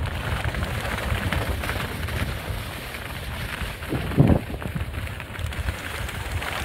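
Wind buffeting the microphone during a downhill ski run, over the hiss of skis sliding and scraping on packed snow, with a stronger gust about four seconds in.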